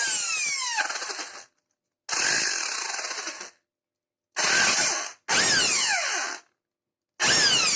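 Electric rotary hammer drill run in five short bursts of about a second each. Its motor whine falls in pitch as it winds down after each burst, and the bursts are separated by dead silence.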